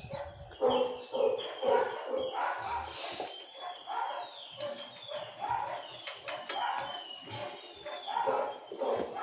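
Dog whining and yipping in short, repeated pitched calls, about two a second.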